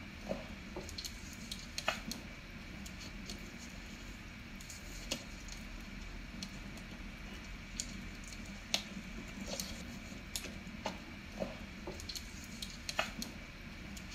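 Faint, irregular water drips, about a dozen single plinks scattered at uneven intervals, over a low steady hum.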